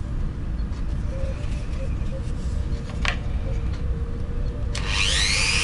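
A Dremel-type handheld rotary tool switched on about a second before the end, its whine climbing quickly in pitch as the motor spins up. Before it, a single short click.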